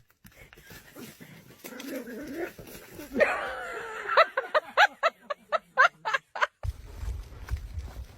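Dog whimpering: one longer whine, then a quick run of short high cries, about four a second. A low steady rumble takes over near the end.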